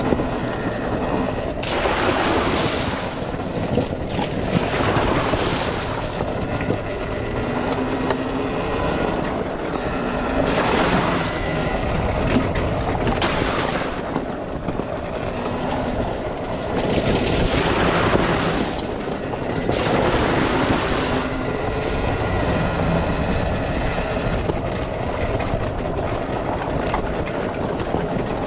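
Volcon Grunt electric off-road motorcycle riding a rough, rocky trail: a steady electric motor whine over the rattle of tyres and chassis on stones. Several brief rushes of noise come as it splashes through puddles.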